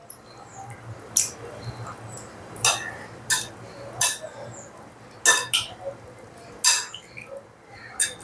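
Metal spoon stirring mango pickle in oil in a glass bowl, clinking sharply against the glass about eight times at uneven intervals.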